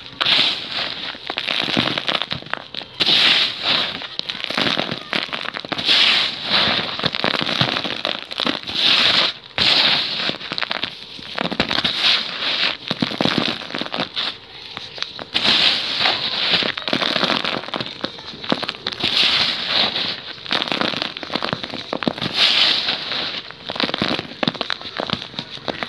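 Dry sand-cement-clay balls being crushed and crumbled by hand, giving a gritty crackling as the pieces break and the grit and powder pour down. It comes in repeated bursts about every one to two seconds.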